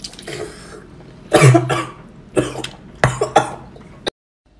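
A woman coughing several times in short, loud bursts while eating spicy seafood; the sound cuts off suddenly near the end.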